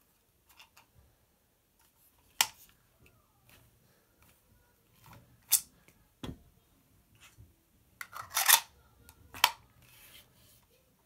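3D-printed plastic break-action prop shotgun being worked by hand: the barrel tips open on its binding-screw hinge and snaps shut against its magnets, giving several sharp plastic clicks and clacks, with a burst of clattering about two-thirds of the way through.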